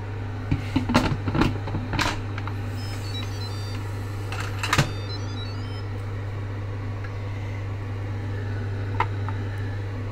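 Electric pressure cooker lid being set on and closed, with several clicks and knocks in the first two seconds and another near five seconds. Two short runs of high beeps sound around three and five seconds, over a steady low hum.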